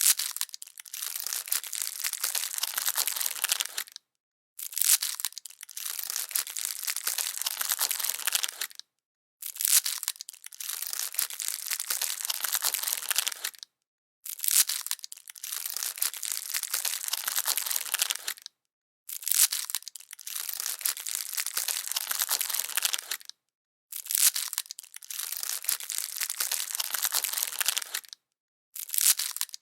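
Plastic candy wrapper being crinkled: a dense, continuous crackle in stretches of about four seconds, each opening with a sharper, louder crackle and broken off by a short gap of total silence, seven times over.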